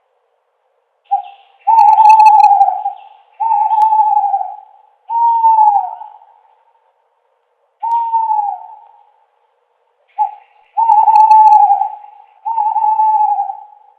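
An owl hooting: a short note followed by a run of long, drawn-out hoots, each sliding down in pitch at the end. A pause comes partway through, then the pattern starts again with a short note and two more long hoots.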